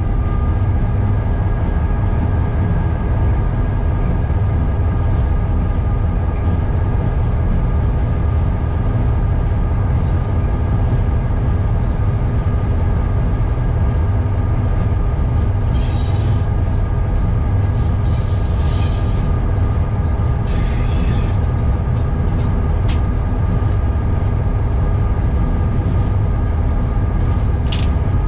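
EMD F7 locomotive's 16-cylinder two-stroke 567 diesel prime mover running steadily at constant throttle, heard from inside the cab. About two-thirds of the way through come three brief high squeals from the wheels on the rails.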